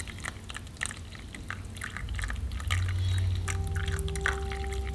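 Coffee pouring from a stainless steel pot into a paper cup, a splashing trickle that grows louder about two seconds in. A steady low tone joins in a little past the middle.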